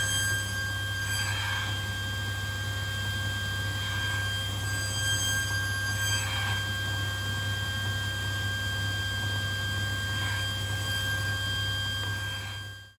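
Table saw running steadily with a hum and a high whine. A few faint, short swishes come and go as a small hardwood tenon piece is fed past the blade.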